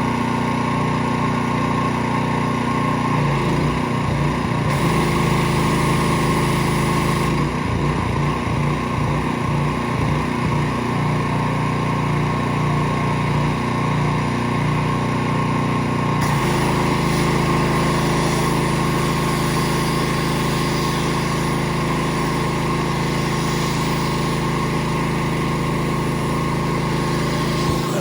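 An engine running steadily and loudly, its low tones shifting a few times as if the load or speed changes.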